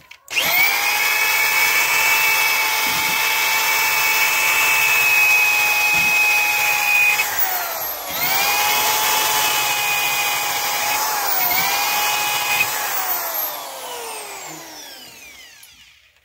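Corded electric drill spinning a wire cup brush against a rusty axe head, scrubbing off surface rust: a steady motor whine with the scratch of the wire bristles. The whine dips in pitch and recovers about halfway through, dips briefly once more, then the trigger is released and the drill winds down near the end.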